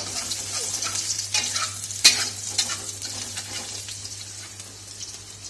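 Chopped garlic sizzling in hot oil in a wok, stirred with a metal spatula that scrapes and clicks against the pan, with one sharp clack about two seconds in. A faint steady low hum runs underneath.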